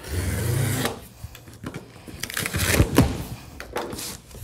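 Cardboard box being opened by hand: a second of rubbing and pressing across the box top, then the cut flaps pulled up and folded back with several sharp cardboard cracks and scrapes, the loudest about three seconds in.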